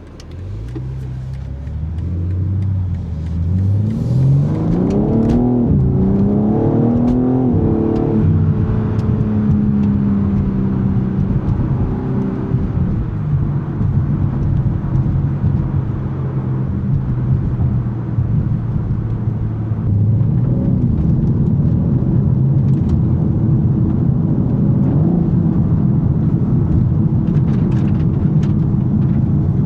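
BMW M3 Competition's 3.0-litre S58 straight-six accelerating hard. The engine note climbs through a few quick upshifts in the first eight seconds or so, then settles into steady cruising.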